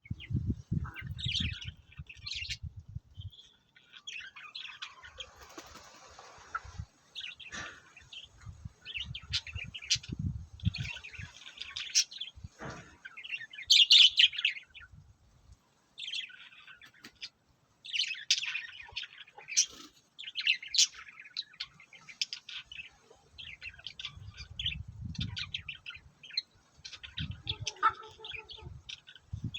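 Small birds chirping in many short, high calls, loudest about halfway through, with low rumbling thumps underneath at times.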